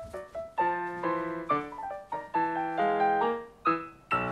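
Solo piano music for a ballet class, playing short detached notes and chords in quick little phrases with brief gaps between them.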